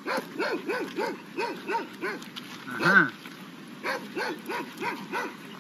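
A dog barking in quick runs, about three barks a second, with one louder, higher bark about three seconds in.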